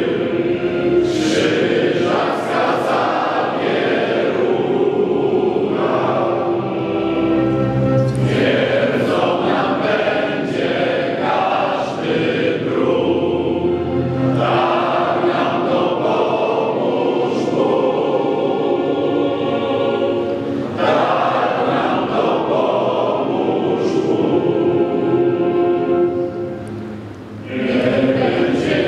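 A group of young voices singing a song together, in long held phrases with short breaks between them and a brief drop in level near the end.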